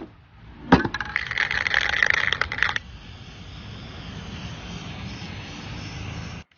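Aerosol spray-paint can shaken hard, its mixing ball rattling for about two seconds, then a steady spray hiss until a sudden cut.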